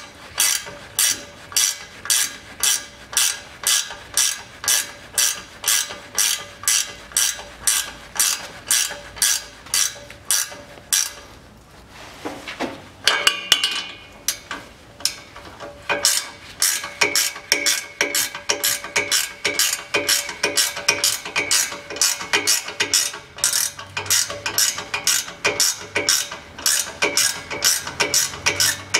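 Ratchet wrench clicking as the nuts on the exhaust pipe-to-muffler flange joint are tightened, about two clicks a second. The clicking stops briefly about twelve seconds in, then resumes at a quicker pace.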